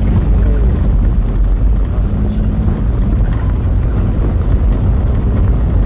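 Car on the move: a loud, steady low rumble of engine and road noise.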